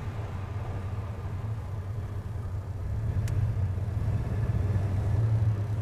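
1935 Rolls-Royce 20/25's 3.7-litre straight-six idling just after a start, on choke with the ignition advance and idle speed raised, heard from inside the cabin; the idle grows gradually louder. A single faint click about three seconds in.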